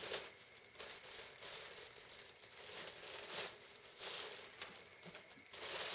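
A clear plastic bag crinkling and a raffia tie rustling as hands untie and open the bag, in several irregular bursts.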